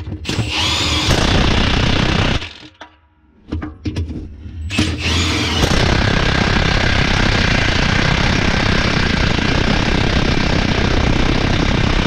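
Cordless impact wrench hammering lug nuts down on a monster-truck wheel. A burst of about two seconds comes first, then a few short blips. About five seconds in, a long steady run of hammering begins.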